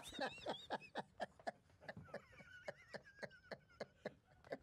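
Hearty male laughter: a long run of short 'ha' bursts, about four a second, each dropping in pitch.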